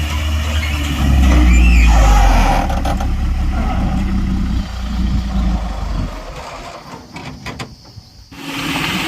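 Heavy diesel engine of earth-moving machinery working, swelling about a second in, then dying away over a couple of seconds to a quieter stretch with a few faint knocks. Engine noise comes back suddenly near the end.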